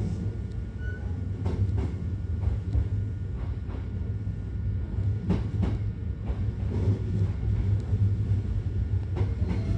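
Hankyu Kyoto Line electric train running, heard from inside the passenger car as it pulls into a station: a steady low rumble with irregular clicks of the wheels over the rails.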